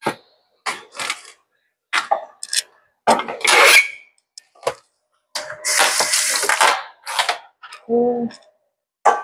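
Kitchen clatter: a plastic cutting board and cleaver being handled, knocked and set down on the countertop in a string of short knocks and clicks. There are two stretches of rushing noise, the longer one lasting about a second and a half midway.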